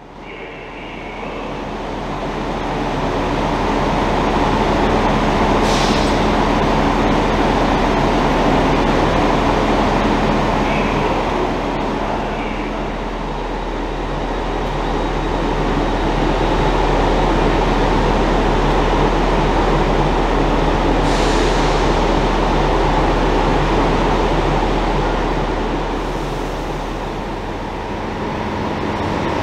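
Classic 1960s SNCB electric multiple unit at a station platform, giving a steady loud drone with a constant low hum, fading in over the first few seconds. Two short hisses come about six seconds in and again about twenty-one seconds in.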